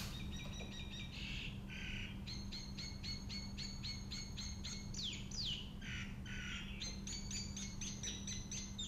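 Small birds chirping: quick repeated chirps, about three a second, with two falling whistled notes about halfway through, over a steady low hum.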